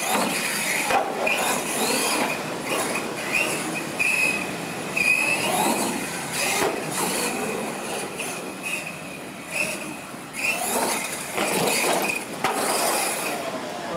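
RC monster truck's motor and drivetrain whining, rising and falling in short sweeps with the throttle, with a few hard thumps as the truck lands off a jump and tumbles over.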